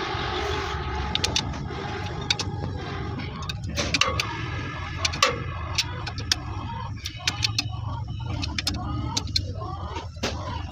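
Repeated sharp metallic clinks and knocks of hand tools on metal parts over a steady low rumble, with voices murmuring in the background.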